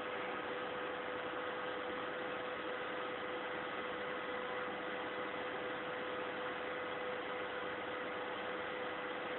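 A steady hum: one constant mid-pitched tone over an even hiss, unchanging.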